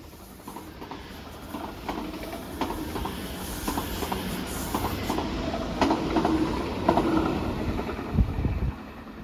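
A train rolling through, its wheels clicking over rail joints at a steady rhythm, growing louder and then dropping away near the end, with a brief low thump shortly before.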